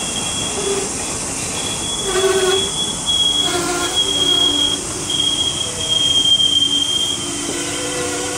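Express train coaches rolling past on a curve, their steel wheels squealing in a string of long, high-pitched screeches over the steady rumble of the train.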